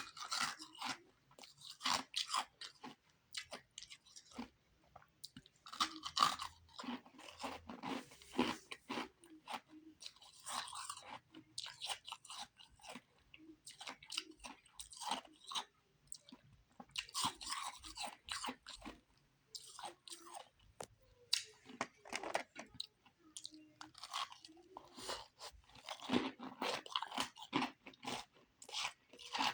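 A person biting and chewing refrozen powdery ice sticks: crisp, crackling crunches in clusters every few seconds, with short pauses between bites.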